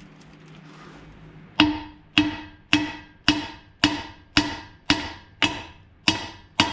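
Hammer blows on the steel yoke of a driveshaft U-joint, driving the joint's bearing caps out. About ten evenly paced strikes, nearly two a second, begin about a second and a half in, and each one rings briefly.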